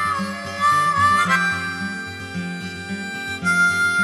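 Background music: a harmonica playing long held notes that bend and slide in pitch, over a guitar accompaniment.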